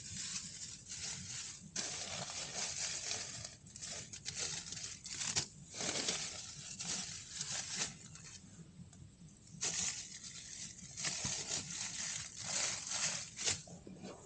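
Rustling and crinkling in irregular bursts a second or two long, with short pauses between, like material being handled.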